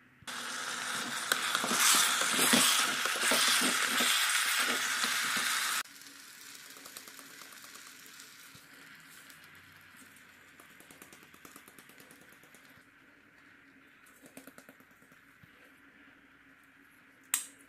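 Electric kettle boiling noodles: a loud hissing, bubbling rush for about five and a half seconds that cuts off suddenly. Fainter crackling follows, then a single sharp click near the end.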